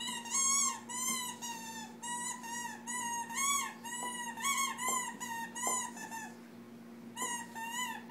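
Rubber basketball squeaky toy squeaking over and over as a puppy chomps on it: a quick run of short squeaks, each rising then falling in pitch, a pause about six seconds in, then a few more squeaks near the end.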